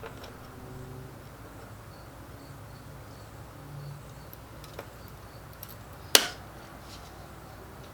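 Small metallic clicks of hand work on a dirt bike's drive chain being connected, with one sharp click about six seconds in, over a steady low hum.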